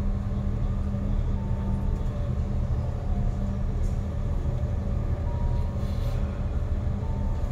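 Steady low drone of a Thames river boat's engines, heard aboard while under way, with an even hum running through it.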